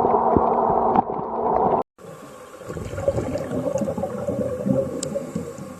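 Underwater sound picked up by a camera in the sea: a dense, steady rush, then after a brief cut about two seconds in, a quieter watery crackle with scattered clicks.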